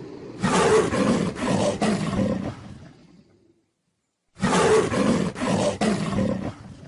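Creature roar sound effect made for a Ceratosaurus dinosaur, played twice: a rough, gravelly roar of about two and a half seconds, a second of silence, then the same roar again.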